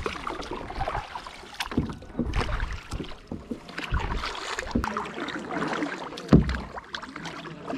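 Kayak paddling: paddles dipping and splashing in river water in irregular strokes, with knocks and wind buffeting the microphone, and a louder thump about six seconds in.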